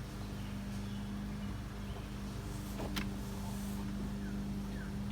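A steady low mechanical hum, with a single sharp click about three seconds in and a few short falling chirps near the end.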